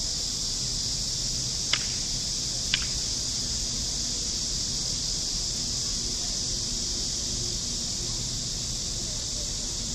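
Steady high-pitched drone of insects, with two short sharp clicks about a second apart near the start.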